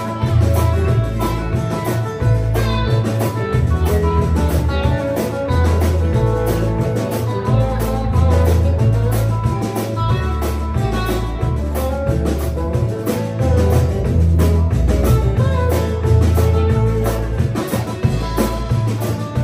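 Live band playing an instrumental passage: electric and acoustic guitars over a steady bass line and drum kit, with no singing.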